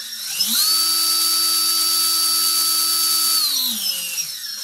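Team Brood Riot S 2000kv sensorless outrunner motor, driven by a Wraith32 ESC running AM32 firmware, spinning a belt-driven crawler drivetrain with the wheels off the ground. The whine climbs in pitch about half a second in, holds steady at speed, then winds down near the end as the throttle comes off.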